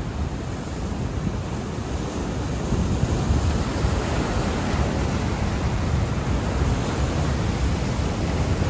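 Pacific Ocean surf breaking on the beach, a steady wash of noise that swells slightly about three seconds in, with wind buffeting the microphone.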